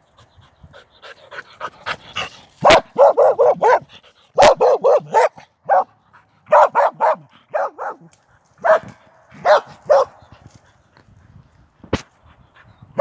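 A dog barking in quick runs of three to five barks with short pauses between. A few sharp clicks cut in.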